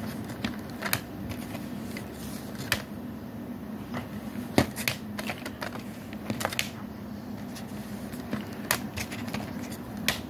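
Plastic DVD case clicking and rattling as discs are pried off and pressed back onto the centre hubs. A string of sharp clicks, the loudest about halfway through, over a steady low hum.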